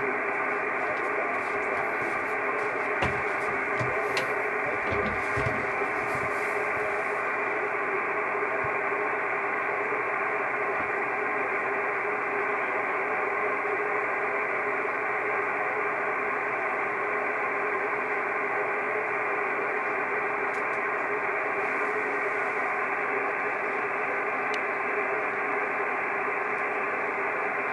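Steady band noise from a Kenwood TS-680S transceiver receiving 6-metre upper sideband at 50.148 MHz: an even hiss with the treble cut off, and no station answering the CQ call. A few faint clicks and thumps in the first several seconds.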